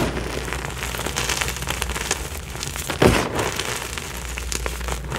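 Hands squeezing and crushing Picsil gym chalk blocks into powder: dense crunching and crackling, with a louder crunch about three seconds in.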